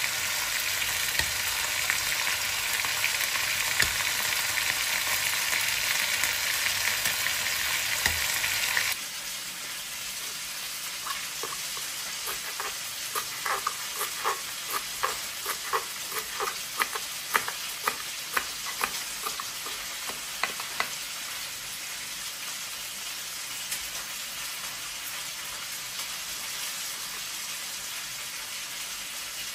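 A steady sizzling hiss as hot cooked buckwheat is stirred with a spoon in a steel pot. It stops suddenly about nine seconds in. A kitchen knife then chops cilantro on a cutting board in quick strokes, about two a second for some ten seconds, followed by quieter cutting.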